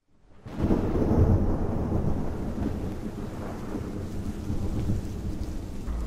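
A deep, steady rumble with a hiss above it, rising quickly out of silence about half a second in and holding.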